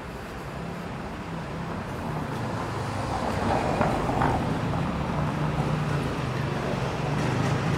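Motor vehicle traffic on a city street, engine noise growing steadily louder.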